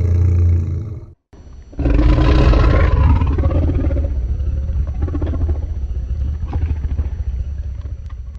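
Fan-made Shin Godzilla roar sound effects: one roar tails off and cuts out about a second in, then after a short gap a new long roar starts, loudest at first and slowly fading over several seconds, with a deep rumble underneath.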